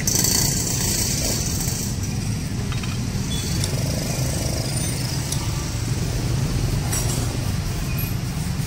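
Steady low rumble of motor vehicles running nearby, with a few faint light clicks.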